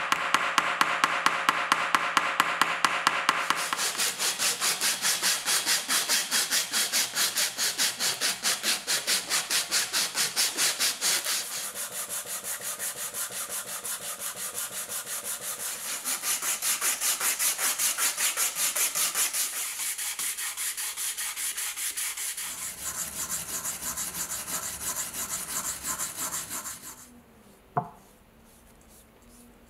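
A steel hammer taps rapidly and evenly for the first few seconds. Then an abrasive is rubbed by hand in quick, regular back-and-forth strokes over a wooden knife handle, shaping it, for about twenty seconds. It stops near the end, leaving only faint quiet sounds and a single click.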